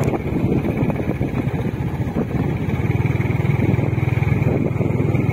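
Engine of a moving vehicle running steadily, with wind rushing over the microphone; the engine note gets louder about halfway through.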